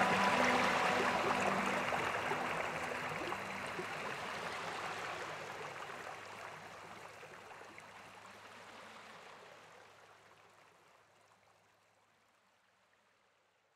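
Rushing river water with a few held notes of background music in the first couple of seconds, the whole fading out steadily to silence about eleven seconds in.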